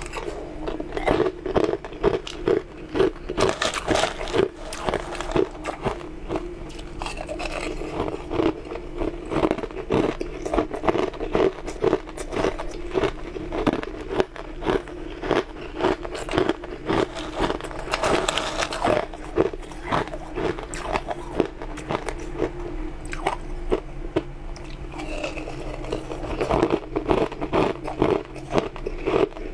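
Chunks of frozen blue-coloured ice being bitten and chewed: a dense run of crisp cracks and crunches in the mouth, coming in bursts with each mouthful.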